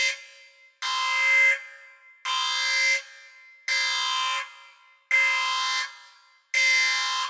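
Alarm sounding in repeated blasts of one steady pitch, about one every second and a half, each lasting about three quarters of a second with a gap of similar length.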